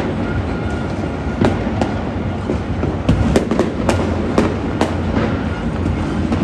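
Citywide New Year fireworks and firecrackers going off in the distance: a steady rumble of overlapping blasts with sharp cracks scattered through it, coming thickest about three to five seconds in.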